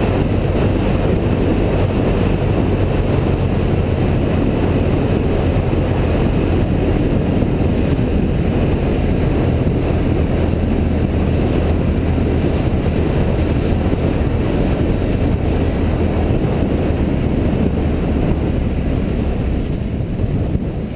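BMW F650GS motorcycle engine running steadily while riding along, mixed with the rush of wind and road noise on the onboard camera's microphone.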